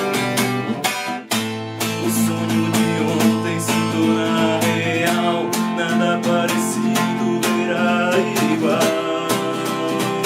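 Acoustic guitar strummed in a steady rhythm, with a short break in the strumming just after a second in.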